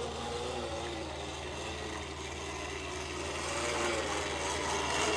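Toy bubble lawn mower running steadily as it is pushed along, its bubble-making mechanism whirring with a constant low hum.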